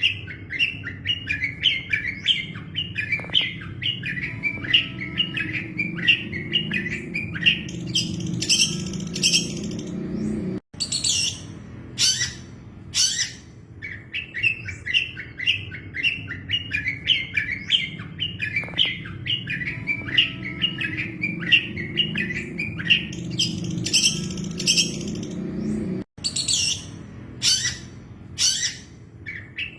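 Long-tailed shrike (cendet) singing, looped as a training track: a fast run of chattering notes building to several loud harsh shrieks. The passage cuts out for an instant about ten seconds in and starts over, and again near the end, over a steady low hum.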